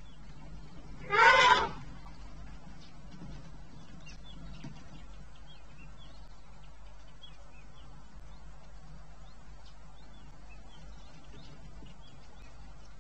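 African bull elephant trumpeting once, a short loud blast about a second in: an angry call. Faint bird chirps follow.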